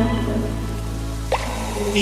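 Background music: a song's instrumental passage with held bass and chord notes, and one quick rising blip about one and a half seconds in.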